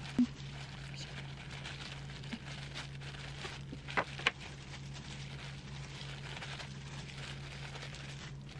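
A steady low hum with a few light clicks and taps from handling ingredients while laying out a gimbap roll: one just after the start and two close together about four seconds in.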